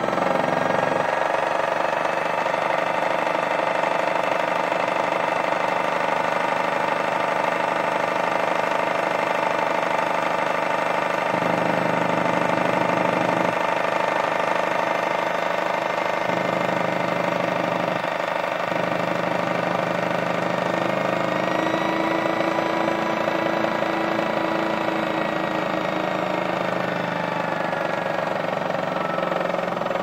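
Modified Miele toy washing machine running, its small electric motor giving a steady whine as it turns the water-filled drum.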